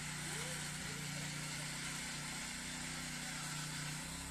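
Small engine of a walk-behind rotary tiller running steadily while it tills soil, its pitch shifting slightly about a second in and again near the end.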